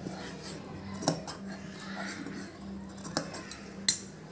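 Steel tailoring shears snipping a few times, short sharp metallic cuts spaced irregularly: clipping notches into the curved neckline seam allowance.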